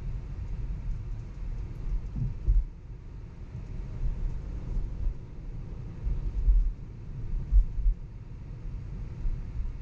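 Low road and tyre rumble heard from inside a moving electric Tesla, with no engine note. A few brief low thumps rise out of it, the strongest about six and a half and seven and a half seconds in.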